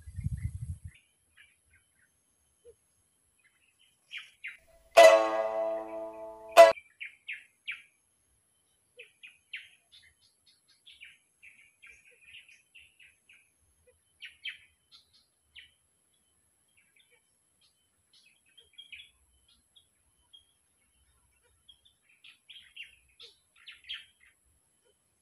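Birds chirping and calling on and off in short high chirps. About five seconds in, one loud, drawn-out call with many stacked tones lasts about a second and a half.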